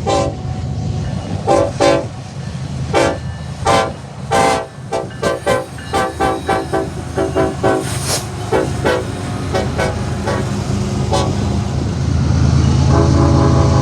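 Nathan Airchime five-chime locomotive air horn sounding a chord in many short toots, a quick string of them from about five to nine seconds in, over a steady low rumble. Near the end the horn starts one long held blast and the rumble grows louder.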